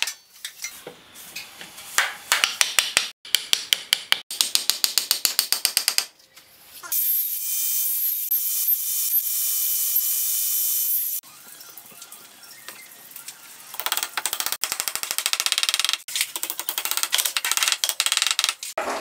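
A table saw cutting through hardwood for about four seconds, a steady loud hiss with a faint whine, stopping suddenly. Before and after it come stretches of rapid, even clicking.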